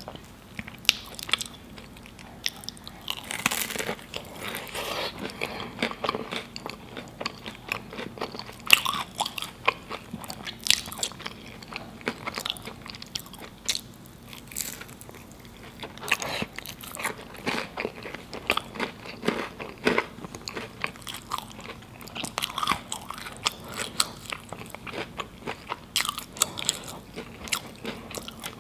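Close-miked eating of a fried samosa dipped in sauce: crisp pastry crunching and wet chewing, a dense run of sharp crackly clicks that comes and goes in bouts.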